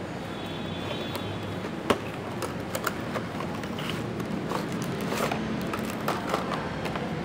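Cardboard figure box being opened and its clear plastic blister tray slid out: scattered sharp clicks and crackles of card and plastic, the loudest a single click about two seconds in, over a steady low background hum.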